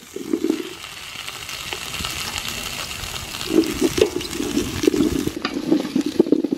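Chopped papaya, carrot and potato tipped from a bamboo basket into a stainless steel pot of soybean oil and garlic, sizzling in the oil; from about three and a half seconds in, a wooden spoon stirs the pieces, knocking and scraping against the pot.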